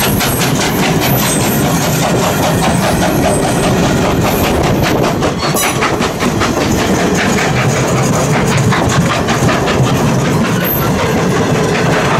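Passenger coaches of a Strasburg Rail Road steam train rolling past close by, steel wheels clicking over the rail joints in a steady clickety-clack over a rumble, with a few brief high squeaks.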